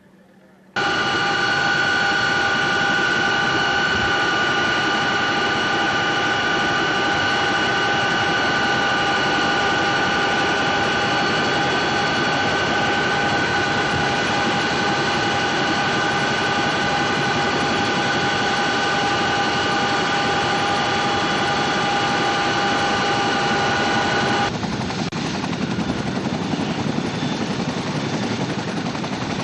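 Helicopter cabin noise in flight: a steady turbine and gearbox whine of several held tones over the rush of rotor and wind, starting suddenly about a second in. Near the end it cuts to the lower rushing noise of a Chinook tandem-rotor helicopter turning its rotors on the ground, without the whine.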